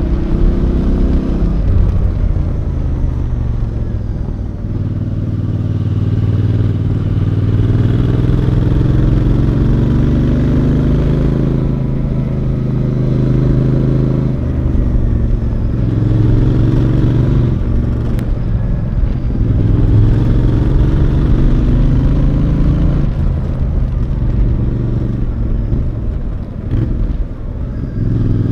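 Royal Enfield Bear 650's 648cc parallel-twin engine heard from the rider's seat while riding, its note climbing and then dropping back several times.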